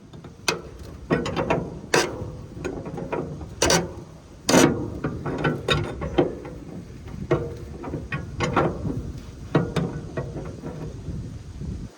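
Wrench tightening a lock nut on a combine's cylinder adjustment: a run of irregular ratchet clicks, with a few sharper metal clanks.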